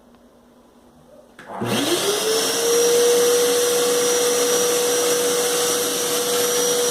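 Vacuum cleaner switched on about a second and a half in: the motor spins up with a quickly rising whine, then runs steadily with a loud rushing noise.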